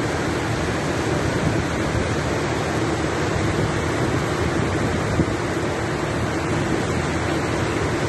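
Heavy rain pouring down in a steady, dense hiss, with a low steady hum underneath and a single small tap about five seconds in.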